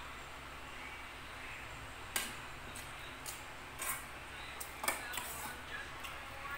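Metal spoon clinking and scraping against a metal pot while eating, a few short sharp clinks about two, four and five seconds in, the one near five seconds the loudest, over a steady background hiss.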